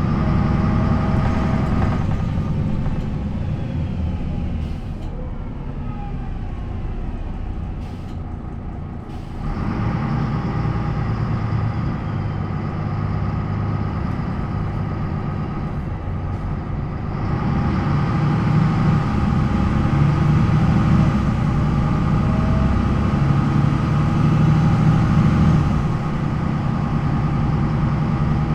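MAN NL 263 city bus's D28 diesel engine, coupled to a ZF Ecomat automatic gearbox, running on the move. The engine eases off for several seconds early on, picks up again after about nine seconds, and grows louder still after the middle as the bus pulls harder.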